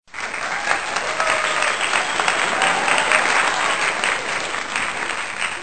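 Firecrackers bursting in a dense, continuous run of rapid crackling pops.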